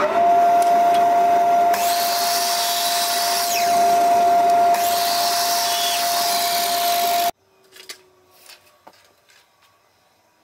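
Ryobi mitre saw's motor running at full speed with a steady whine. Its blade cuts through a small workpiece for about three seconds, starting about two seconds in. The sound cuts off abruptly about seven seconds in, leaving only faint clicks of small parts being handled.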